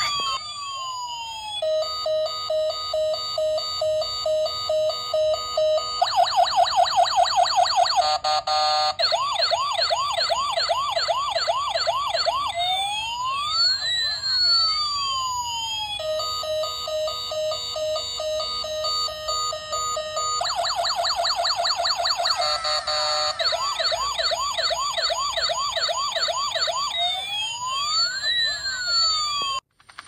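Toy police car's electronic siren cycling through its patterns: steady beeping at two or three beeps a second, then a fast warble, then rising-and-falling wails. The sequence starts over about halfway through.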